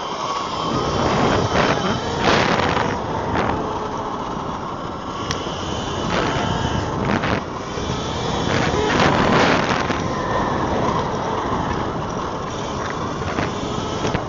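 Eride Pro SS 3.0 electric dirt bike being ridden: the motor's whine rises and falls in pitch under steady rough wind and tyre noise, with a few louder surges.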